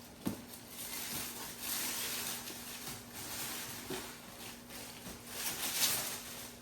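Toy packaging being opened by hand: rustling and crinkling with a few sharp clicks, loudest near the end.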